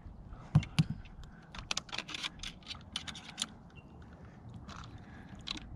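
Irregular clicking and scratching, with two sharp loud clicks about half a second in and a rapid cluster in the middle, as a Zebco spincast reel is cranked to drag a snagged RC boat toward shore.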